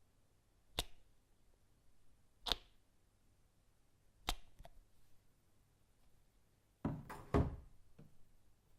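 A run of short sharp knocks made with household objects: three single clicks about a second and three-quarters apart, then near the end a rougher, heavier cluster of knocks and a last small tap.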